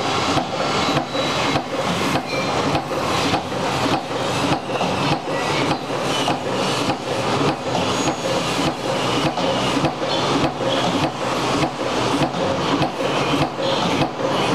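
CNC turret punch press punching rows of holes in sheet metal: a steady, even run of sharp hits, nearly three a second.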